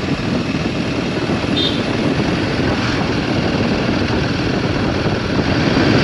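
Royal Enfield Himalayan 450's single-cylinder engine running steadily at low road speed, about 20–25 km/h, with wind and road noise on the bike-mounted camera.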